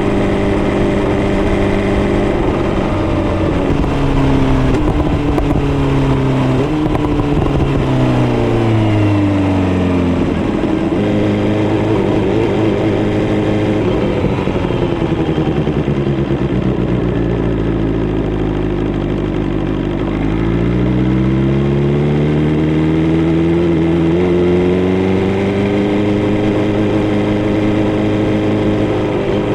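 BMW S1000R inline-four engine heard on the move. Engine speed falls in steps over the first ten seconds, runs low and steady, then climbs about twenty seconds in and holds before easing off near the end.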